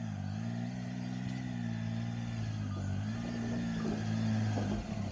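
Triumph Tiger adventure motorcycle's three-cylinder engine running at low revs as it is ridden slowly, its pitch dipping and picking up again a few times, growing gradually louder as it comes closer.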